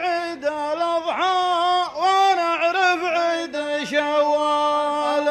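A man chanting a line of Nabati poetry to a tarouq melody into a microphone. His voice holds long, drawn-out notes with brief dips in pitch between them.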